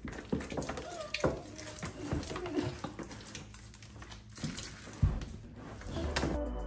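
Hands squishing and kneading a heavy mass of mixed sticky slimes in a plastic storage bin: irregular wet squelches and smacks, with a dull thump about five seconds in.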